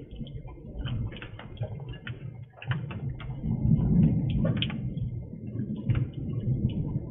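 Thunderstorm noise picked up by a porch security camera's microphone: a low, rolling rumble that swells about three to four seconds in, with scattered crackles over it.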